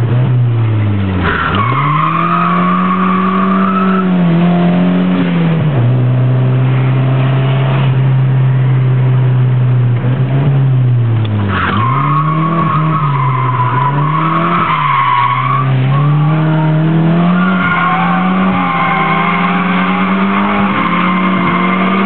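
Nissan 200SX (S13) engine revving hard as the car drifts, heard from inside the cabin. The revs drop sharply twice, each time just before the tyres start squealing. The squeals come in long stretches about a second in, again about halfway through, and through the last few seconds.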